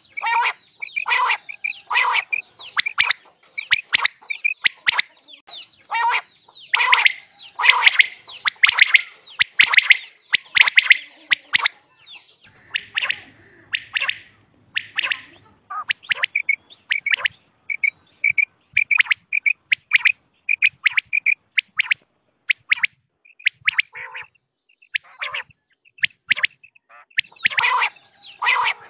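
Quail calling: clusters of short, sharp, rapidly repeated notes, with a stretch of evenly spaced single notes at about two a second in the middle. This is the kind of quail call played to draw quail in for hunting.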